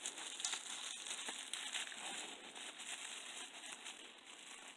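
Packaging crinkling and rustling with many small clicks and crackles as it is handled.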